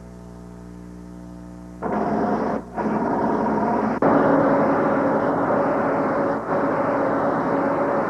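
A held musical chord gives way, about two seconds in, to a loud, steady engine drone over a rushing noise. It drops out briefly a few times.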